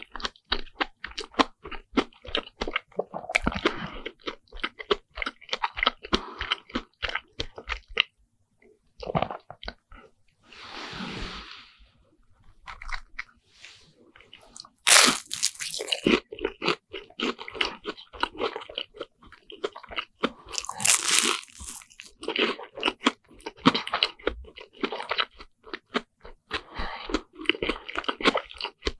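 Crunching and chewing of deep-fried bread sandwiches with a crisp fried crust, a dense run of small crunches. There is a short break in the chewing around 8 seconds in, and loud crunchy bites about 15 and 21 seconds in.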